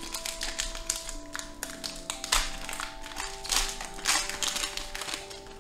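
Background music with held notes, over the crackle and tear of a foil Pokémon card booster pack being ripped open and its cards handled, in a few sharp rustles.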